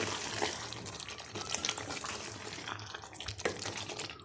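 Wooden spoon stirring chicken and cream in a hot karahi: wet, liquid stirring sounds over a steady hiss from the pan, with scattered short taps of the spoon against the metal.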